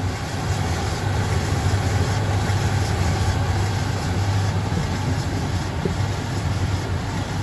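Indesit IDC8T3 condenser tumble dryer running with its motor capacitor replaced, so the drum now turns: a steady low motor hum under an even rushing noise.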